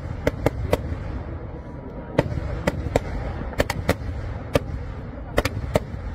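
Kerala temple-festival fireworks (vedikkettu) going off: a dozen or so sharp bangs at irregular intervals over a continuous low rumble.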